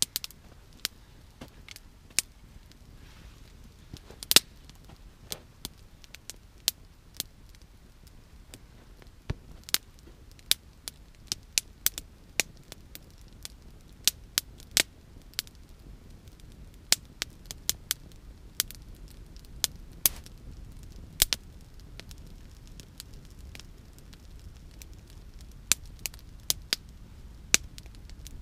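Campfire of thin dry sticks and brushwood crackling, with irregular sharp pops and snaps every second or so. Underneath, a low steady rumble grows louder in the second half as the flames climb higher.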